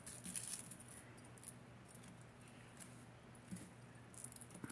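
Faint, scattered small clinks of costume jewelry chains and beads being handled, over a low steady hum.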